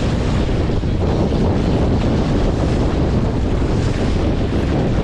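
Wind buffeting the microphone, with the steady wash of sea water around a boat.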